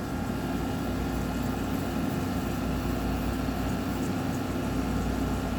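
2018 General Electric 6,000 BTU window air conditioner running steadily: a constant low hum from its Qingan rotary compressor and fan, with faint steady tones above. The compressor's accumulator and suction line are freezing up, which the owner puts down to an overcharge of refrigerant.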